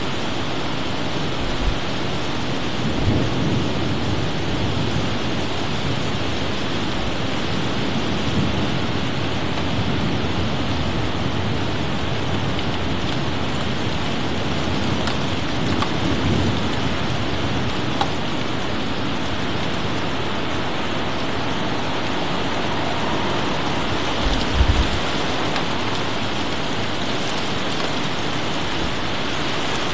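Steady heavy rain of a summer thunderstorm, with thunder rumbling low twice, and a short low thump about three-quarters of the way through.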